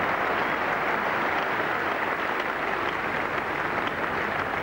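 Cricket crowd applauding a good shot: a steady wash of clapping.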